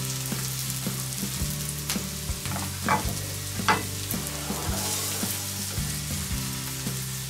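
Mushrooms sizzling in butter in a cast-iron pan on a charcoal grill. A wooden spoon stirs them, with a few sharp knocks of spoon and pan, and the sizzle brightens about five seconds in.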